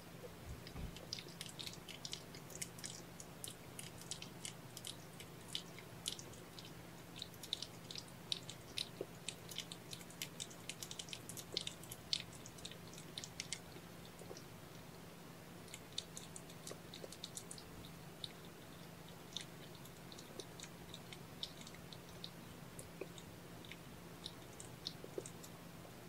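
Mother cat and kittens grooming at close range: quick, irregular wet tongue clicks and smacks, densest in the first half and sparser later, over a low steady hum.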